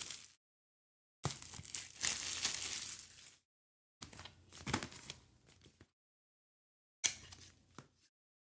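Packaging crinkling and tearing as it is handled, in four rustling bursts that each cut off abruptly into dead silence.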